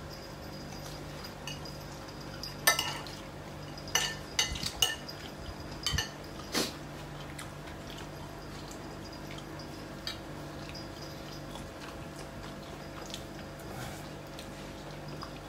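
Metal forks and spoons clinking and scraping on ceramic plates as people eat: a cluster of short clinks a few seconds in, one more later, over a faint steady hum.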